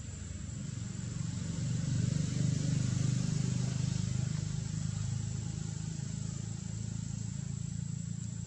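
Low motor-vehicle engine rumble that swells about two seconds in and slowly eases off, with a thin steady high-pitched tone throughout.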